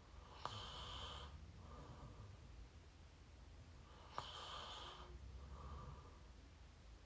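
Sleeping person snoring through an open mouth, close to the microphone: two slow breath cycles about four seconds apart. Each opens with a sharp mouth click, then a longer noisy breath and a shorter, softer one.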